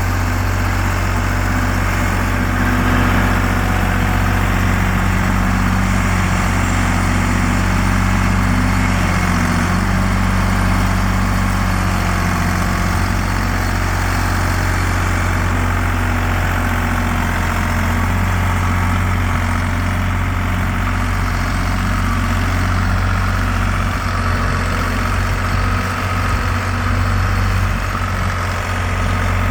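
Engine of a vintage construction tractor running steadily at low revs, with a deep steady drone and small changes in load partway through.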